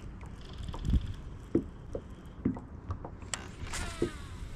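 Wind rumbling on the microphone aboard a plastic fishing kayak, with scattered small knocks and water slaps against the hull about once a second. A short falling whistle-like tone comes near the end.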